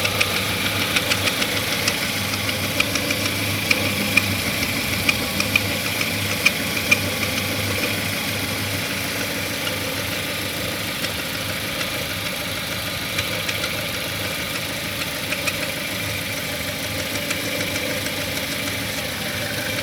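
Chevrolet Cruze petrol engine idling with a sharp, irregular knocking tick over the steady running, more pronounced in the first several seconds. The owner puts the knock down to the timing drive (ГРМ): it has been there since new and is now more noticeable at 36,000 km.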